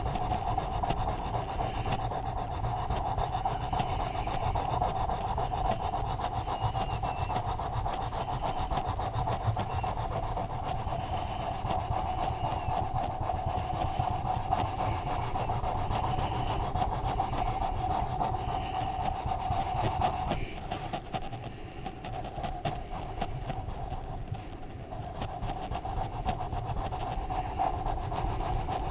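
Colouring strokes rubbing on a colouring-book page, a continuous scratchy back-and-forth over a steady hum, easing off for a few seconds about two-thirds of the way through.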